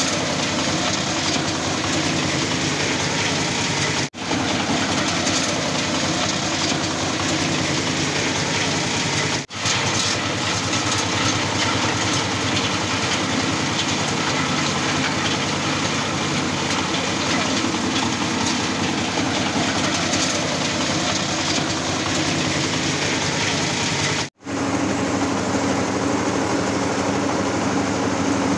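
Belt-driven areca nut husking machine running, powered by a small stationary engine: a steady, dense mechanical running noise. It drops out briefly three times, and after the last break a low steady hum is stronger.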